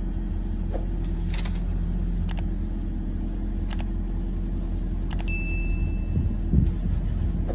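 Safari jeep's engine running steadily at low revs, a low drone, with a few sharp clicks and knocks over it and a short high electronic tone about five seconds in.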